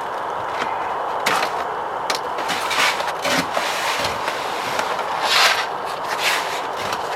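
Plastic sound-insulation membrane being pulled away from the soft, stretchy sealant on a BMW X3 F25 door panel: irregular crackling and rustling, loudest about five seconds in, over steady background noise.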